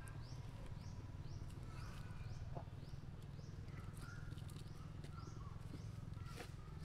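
A small animal's high chirp, rising in pitch and repeated about twice a second, over a steady low rumble.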